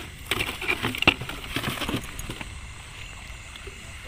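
Gloved hands handling a freshly caught eel and a container: a cluster of rustles, clicks and small knocks over the first two seconds, then a quieter steady background with a faint high insect drone.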